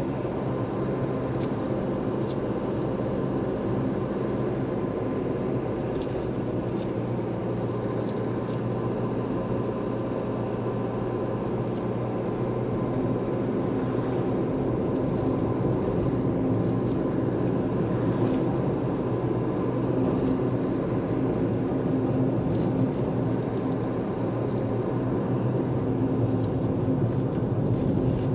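Car driving along a road: steady engine hum and tyre rumble, heard from inside the moving car. The engine note changes about halfway through, and a few faint ticks come through.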